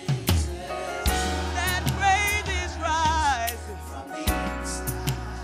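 Live gospel worship song: a lead singer's wavering, ornamented vocal line over a sustained low bass note and regular percussion hits.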